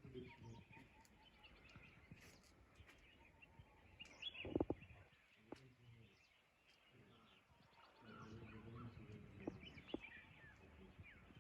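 Faint bird chirps and calls, with a single louder knock about four and a half seconds in.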